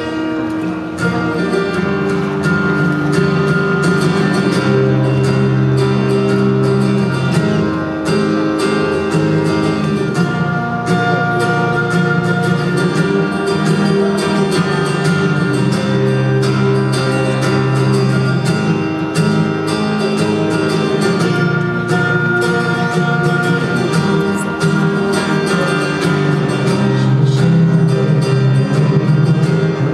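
A steel-string acoustic guitar played through a stage PA, with a man singing into the microphone.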